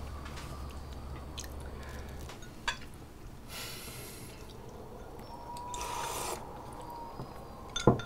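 Dinner-table eating sounds: a few light clicks of chopsticks against bowls and dishes, chewing, and a couple of short hissing sips from a small bowl about halfway through.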